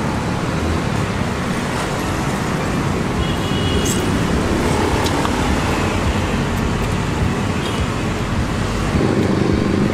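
Steady traffic noise from a busy city road.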